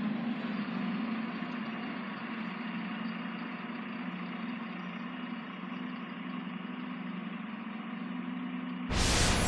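A regional train standing in the station, running with a steady low hum and a hiss above it, like an engine idling. Just before the end, a sudden loud rush of noise cuts in over it.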